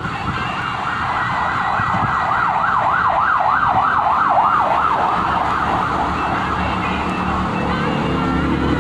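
Emergency vehicle siren in a fast yelp, its pitch sweeping up and down about three times a second, growing louder and then fading away after about six seconds, over a low rumble of traffic.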